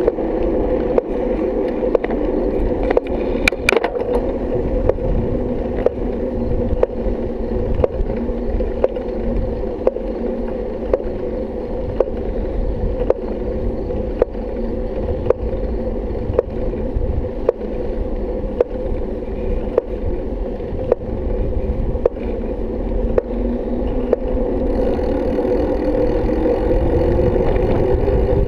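Bicycle rolling on asphalt, heard through a GoPro's housing: a steady muffled rumble of tyres and wind with a regular click about one and a half times a second. Near the end a hum rises in pitch.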